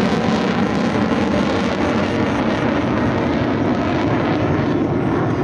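Fighter jet's engines in a steady, loud rush of noise as the jet flies past overhead.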